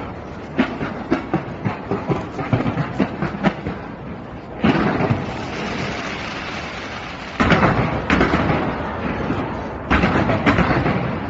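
Fireworks going off in a display: a run of quick sharp pops and crackles, then three sudden loud barrages, each bursting in and trailing off into a continuous rumble and crackle.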